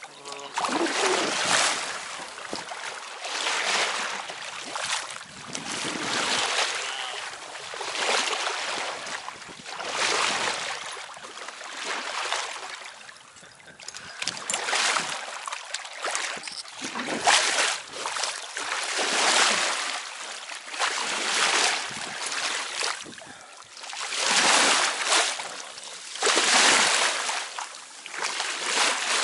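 Water rushing and splashing along the hull of a small sailing yacht, a Hurley 22, swelling and fading about every two seconds.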